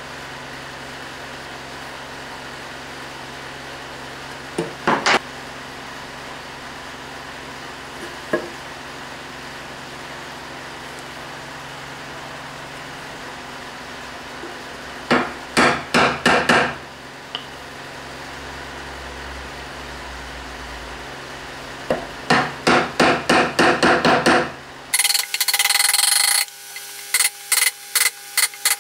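A wood chisel being struck in quick runs of sharp blows, chopping a marked recess into the edge of a chestnut-wood board. A few single knocks come first, then bursts of about half a dozen strikes each.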